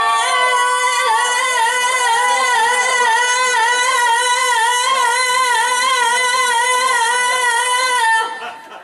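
A woman singing one long held note with a wavering vibrato, stopping about eight seconds in.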